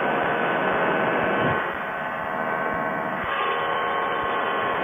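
Quicksilver ultralight's two-stroke engine and propeller running steadily at high power with wind rush on the takeoff roll and climb-out, dipping slightly in loudness about a second and a half in.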